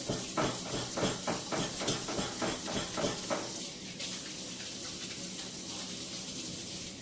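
Kitchen faucet running with a steady hiss while hands are washed under it, with uneven splashing in the first half.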